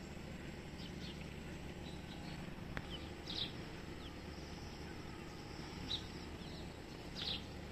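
Birds chirping in a few short, high calls, about three, six and seven seconds in, over a steady low background hum.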